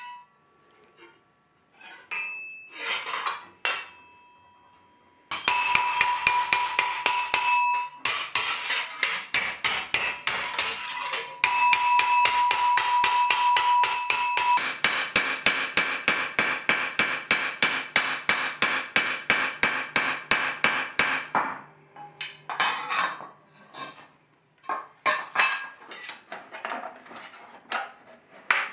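Hammer striking a 4130 spring-steel armour plate over a round steel stake. A few scattered blows, then fast, even hammering at several blows a second with a metallic ring, then slowing to irregular taps for the last several seconds.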